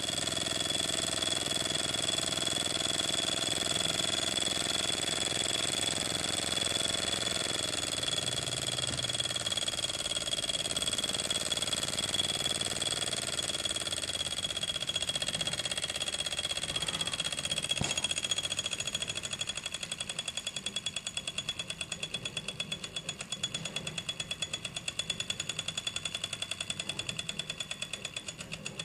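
Microcosm M88 miniature walking-beam steam engine running fast, a rapid mechanical clatter with a steady high tone. From about two-thirds of the way through it slows, its strokes turning into separate, evenly spaced beats: the engine is running down at the end of its run.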